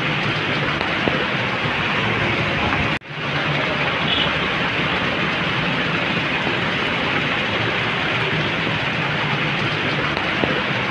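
Heavy rain on a flooded street with traffic moving through the water: a steady, loud rushing noise over a low vehicle hum. It cuts out for an instant about three seconds in, then carries on.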